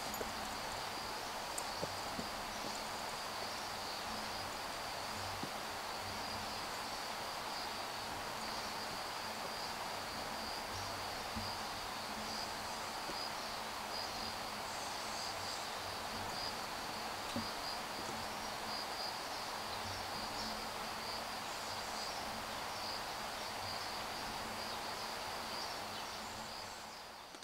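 Steady chorus of insects, a constant high-pitched buzz over a soft background hiss, with a couple of faint taps near the start.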